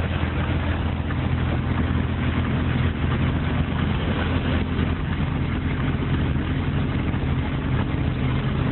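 Vehicle engine humming at a steady speed, with road and wind noise, heard from inside the cabin while driving.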